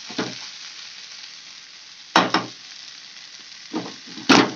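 Black chickpeas and potatoes in masala sizzling in oil in a kadhai while a metal spatula stirs them, scraping across the pan a few times, loudest about two seconds in and again near the end. This is the bhuno stage, roasting the mixture in the spices.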